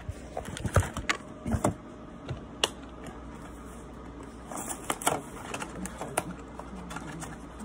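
Cardboard snack-bar box being handled and opened by hand: irregular clicks, taps and rustles, loudest in the first two seconds and again about five seconds in.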